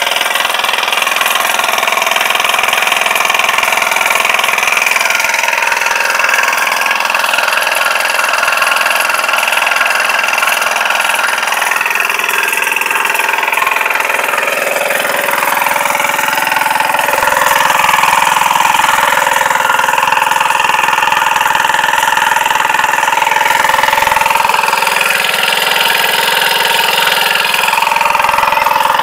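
Air-cooled motorcycle engine running steadily as the power unit of a portable water pump, getting a little louder about halfway through.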